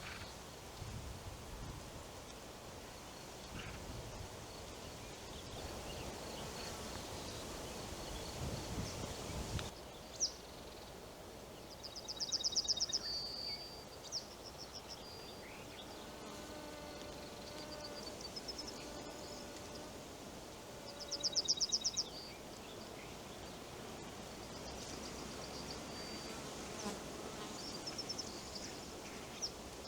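Forest ambience: wind rumble and rustling up to about a third of the way in, then a small bird's rapid, high trill repeated three times, roughly every nine seconds, over a faint steady background hum.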